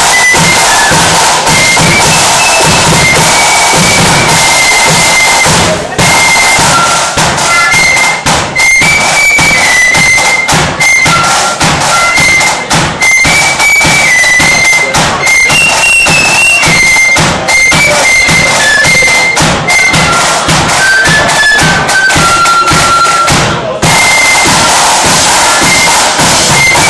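Flute band playing a march tune: a line of flutes carries a high, stepping melody over a steady beat from a bass drum and snare drums. The sound is loud, with short breaks about six seconds in and near the end.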